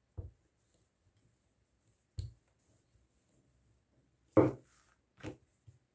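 A few short, separate knocks of a wooden rolling pin and hands working a slab of dough on a marble counter, the loudest about four and a half seconds in.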